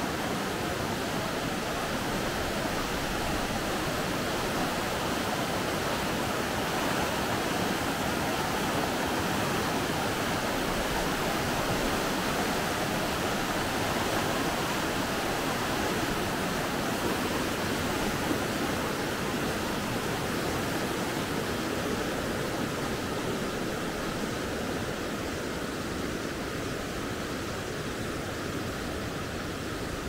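Fast-flowing glacial river, the Weisse Lütschine, rushing steadily over its stony bed, a little fainter near the end.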